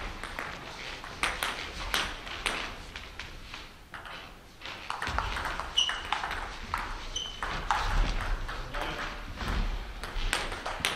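Table tennis ball clicking off bats and the table in quick irregular rallies, with a couple of short high squeaks around the middle.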